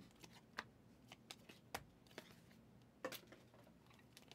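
Faint handling of a stack of Panini Prizm football cards as they are flipped through in the hand, one card slid behind another, with a few soft, irregular clicks.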